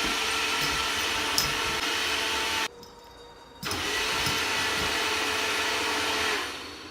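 A steady motor whir with a hiss and a faint hum, in two stretches of about three seconds each, cut off for about a second between them and fading out near the end.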